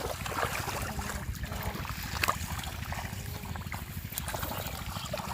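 Shallow muddy water sloshing and splashing as fish are grabbed by hand, with a sharp splash a little over two seconds in.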